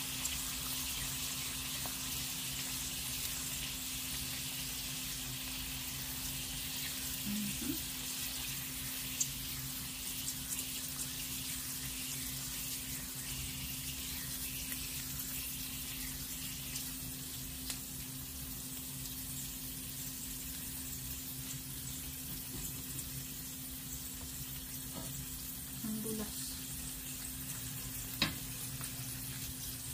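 Whole eggs frying in oil in a stainless steel pan, a steady sizzle throughout, with a sharp tap near the end.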